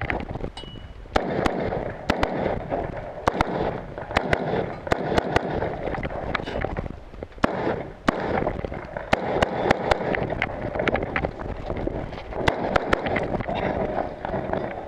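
Rifle gunshots: a string of single shots fired about a second apart, some in quick pairs, with wind buffeting the microphone.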